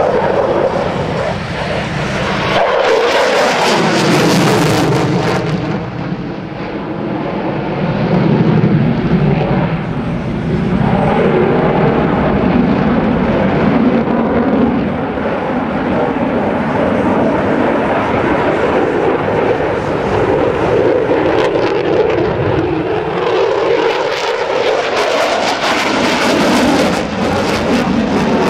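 Loud, continuous jet noise from an F-16 Fighting Falcon flying demonstration manoeuvres overhead. The rushing sound swells and eases, and its tone slides down and back up as the jet moves across the sky.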